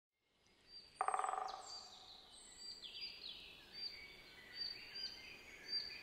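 A great spotted woodpecker drumming one short, fast roll about a second in that fades out within half a second, followed by songbirds chirping: repeated short high chirps and a few thin falling whistles.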